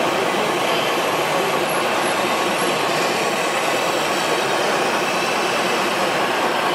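Steady, even mechanical running noise with no distinct strokes or pitch changes.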